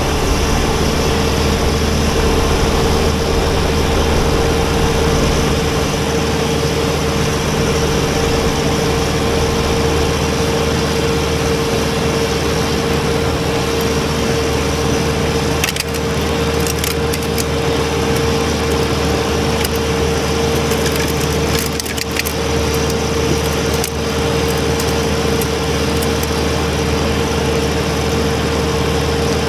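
Kubota BX23S compact tractor's three-cylinder diesel engine running steadily under work, with a constant high whine over the low engine hum. Scattered sharp clicks and ticks come in partway through.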